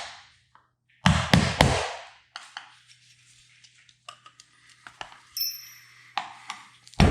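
Hammer striking a small metal punch to knock fasteners out: three hard blows about a second in, then light metallic clinks and taps with a brief high ring, and another hard blow at the end.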